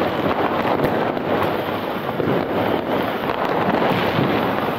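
Continuous din of many New Year's Eve fireworks going off at a distance: countless bangs and crackles merging into a steady noise, with a few sharper cracks standing out.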